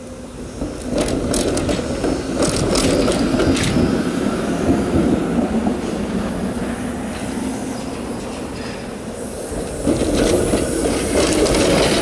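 TTC streetcars passing close one after another: their steel wheels rumble on the rails, with scattered sharp clicks from the track. The first swells past from about a second in, and a second one passes near the end.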